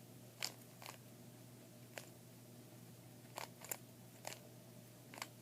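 Plastic Rubik's Cube layers being twisted by hand: about seven short, sharp clicks at irregular intervals.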